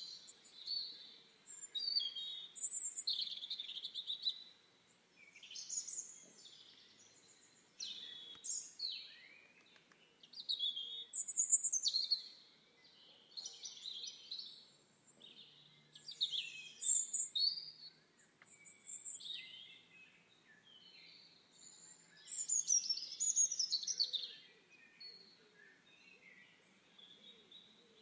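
Songbirds singing: a run of short, high-pitched chirping and warbling phrases, one every second or two, with brief pauses between.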